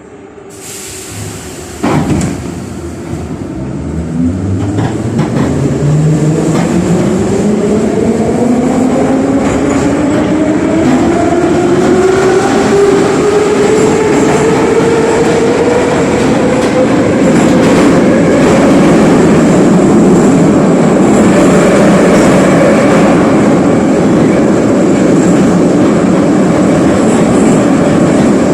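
Metro train pulling away and accelerating. A knock comes about two seconds in, then the traction motors' whine rises steadily in pitch for about fifteen seconds and levels off into steady running noise.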